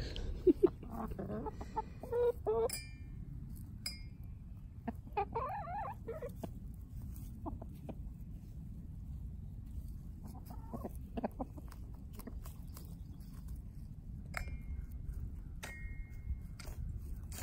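Hens clucking, most of it in the first few seconds, and a toy xylophone's metal bars struck by pecking, ringing out as single short notes about four times.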